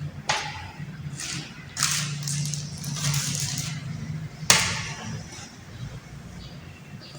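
Scattered short scraping and rustling noises, with a sharp knock about four and a half seconds in, over a steady low hum.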